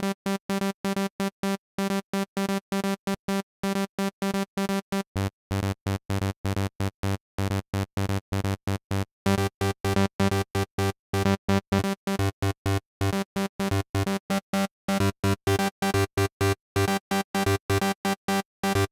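Native Instruments Massive software synthesizer playing a rapid staccato chord pattern, about four short chords a second with silence between them: the raw lead for a big room EDM breakdown, still being built. About five seconds in, a lower octave joins as the oscillators are retuned an octave down and up, and a few seconds later the chords get louder.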